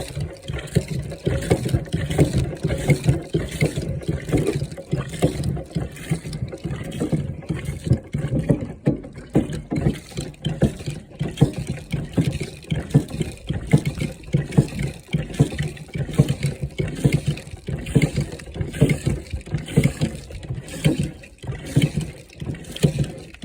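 Hand-operated barrel pump pumping rainwater, water gushing and splashing from its spout in an uneven, churning stream.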